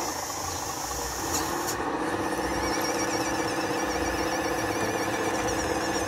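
Radio-controlled model CAT D11 bulldozer running on its tracks: a steady whine from its drive motors and gearing, joined from about two seconds in by a high, wavering squeal.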